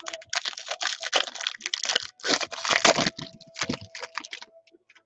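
Foil wrapper of a 2019 Topps Inception baseball card pack being torn open and crinkled by hand: dense crackling for about three seconds, then scattered lighter crinkles as the cards are slid out of the wrapper.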